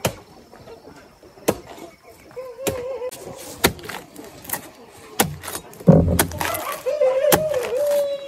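Repeated sharp chopping strikes, about one a second, the heaviest about six seconds in with a dull thud. A drawn-out wavering pitched sound joins briefly in the first half and again near the end, sliding down in pitch as it ends.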